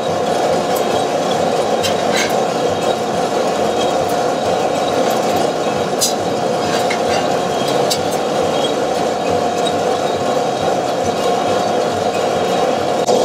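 Two-barrel Probat sample coffee roaster running steadily, its drum and air flow making a continuous mechanical noise with beans tumbling inside, mid-roast and browning before first crack. A few sharp metallic clicks come as the sampling trier is pushed into the drum and drawn out.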